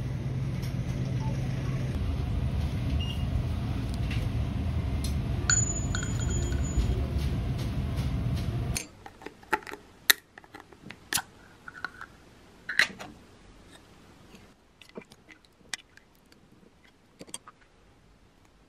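For the first half, a steady low hum of background noise at a food counter. It cuts off suddenly to quiet, and a metal ring-pull on a can of wet cat food clicks and pops open, followed by scattered sharp clicks and scrapes as the food is handled toward a ceramic bowl.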